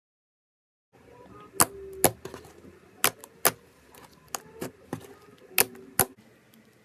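Sharp clicks in three pairs, each pair about half a second apart, over faint squishing crackle, from a slime-filled stress ball being cut.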